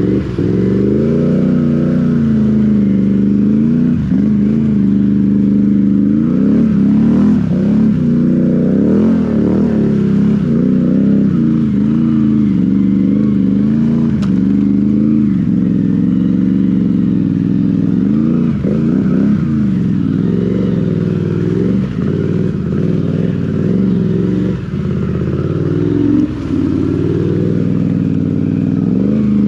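Can-Am Renegade XMR 1000's V-twin engine through an RJWC dual exhaust, revving up and down over and over with the throttle as the ATV pushes through flood water on the trail, water splashing around it.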